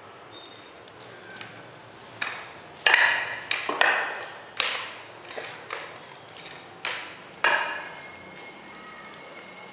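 Spiked shoes stepping across a wet epoxy floor coating: a string of sharp clicks and clinks at an uneven walking pace, some with a short ring.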